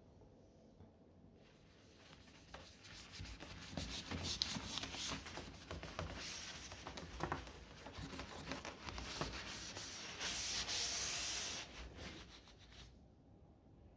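Rough, continuous rubbing or scrubbing against a surface, dotted with small clicks and knocks. It starts about a second and a half in and grows louder, with a loudest steady stretch near the end before it stops abruptly.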